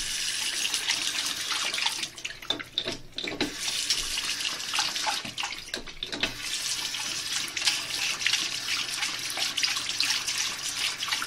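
Running water splashing, like a tap flowing into a basin; the flow drops away briefly about two to three and a half seconds in and again around six seconds.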